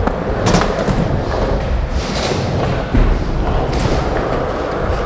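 Skateboard wheels rolling over concrete with a steady rumble, broken by a few sharp thuds of boards striking the ground.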